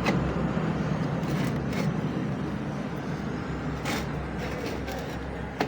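Steady low background rumble, fading slowly, with a few light clicks and taps of handling on the bench.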